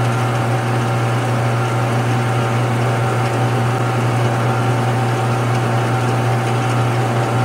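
Small metal lathe running slowly with a steady motor hum while a turning tool takes a light chamfer cut on the brass tip of a set screw.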